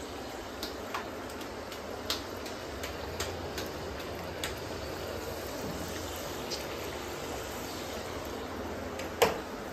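Cucumber vade deep-frying in hot oil in a steel kadai: a steady sizzle, with a few light clicks of a metal spoon against the pan and a sharper clack near the end.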